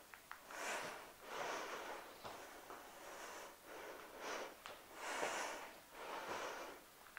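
A woman breathing hard from the exertion of a workout, loud breaths in and out in a steady rhythm of about one a second.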